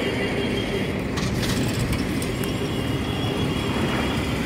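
Steady road traffic noise from motorcycles and scooters running along a street, a continuous low rumble with a few short clicks about a second in.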